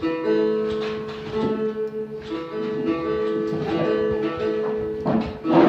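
A phin, the Isan plucked lute, is played: a melody of plucked notes over steady sustained drone notes.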